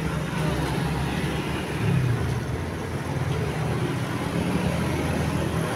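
Steady low rumble of heavy road traffic, with no horn melody sounding.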